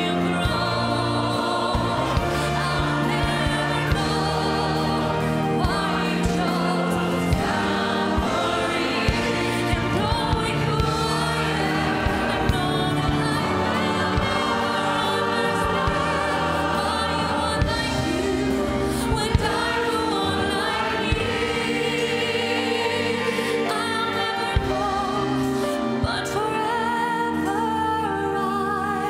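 Live gospel worship song: a choir and a female lead singer sing with a band of guitars, bass and piano and an orchestra.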